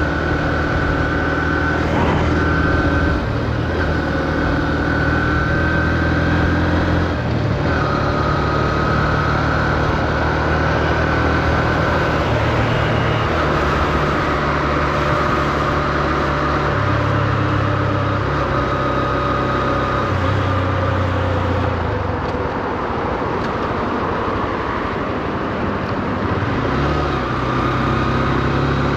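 Honda CB125F's air-cooled single-cylinder four-stroke engine running while the motorcycle is ridden, its pitch holding steady for a few seconds at a time and stepping up and down with throttle and gear changes. It is kept at low revs while the new engine is run in.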